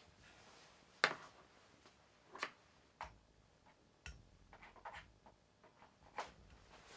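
A few faint, scattered clicks and knocks from handling the Dremel rotary tool and its power cord, with the motor not running.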